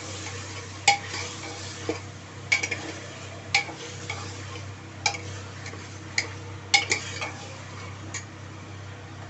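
Steel ladle stirring mutton, onion and tomato as they fry in an aluminium pressure cooker, clinking against the pot about ten times at irregular intervals over a low steady hiss.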